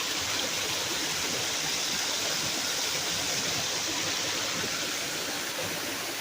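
Waterfall heard from close by at its base, a steady rush of falling water running at a light flow.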